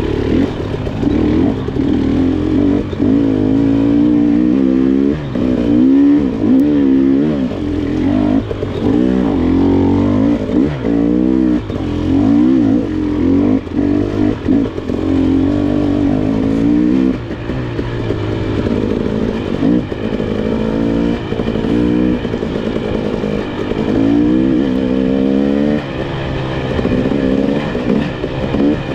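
KTM 300 XC's two-stroke single-cylinder engine revving up and down over and over as the throttle is worked, never settling to a steady speed.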